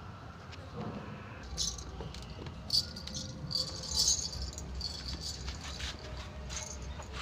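Light metallic jingling and rattling in irregular clusters, starting about a second and a half in and busiest around the middle.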